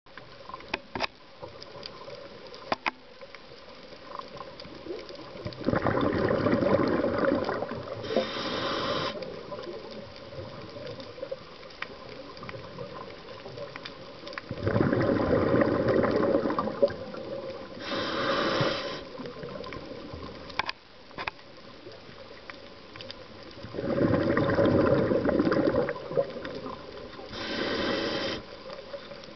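Scuba regulator breathing underwater: three breaths about nine seconds apart, each a burst of exhaled bubbles followed by a shorter hiss of inhalation. Faint scattered clicks sound in between.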